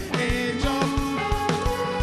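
Live indie rock band playing: a drum kit keeps a steady kick-drum beat under held keyboard and voice notes.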